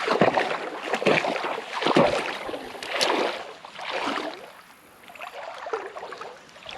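Creek water sloshing around legs as a person wades, in surges about one a second that ease off for a moment a little past the middle.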